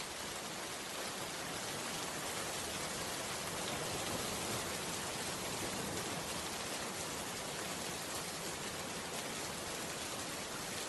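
Steady rain falling, an even hiss that keeps on without a break.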